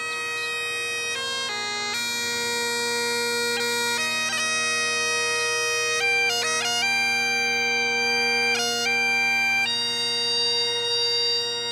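Great Highland bagpipe played: steady drones sound under a chanter melody of long-held notes broken by brief quick grace notes.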